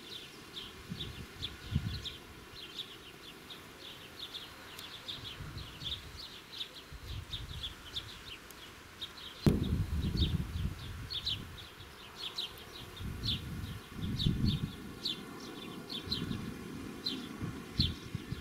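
Insects chirping in a summer field: rapid short high chirps, a few a second, over gusts of wind buffeting the microphone that grow stronger about halfway through.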